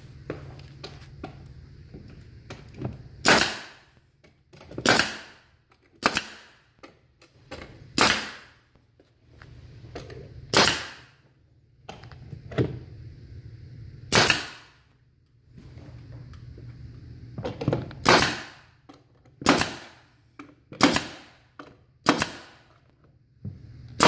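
Pneumatic nail gun firing nails into wooden stair treads and risers: about a dozen sharp shots, spaced irregularly one to four seconds apart, each with a short hiss of air.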